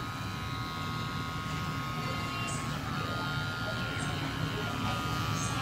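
Cordless electric hair clipper running with a steady buzz as it trims a boy's short hair.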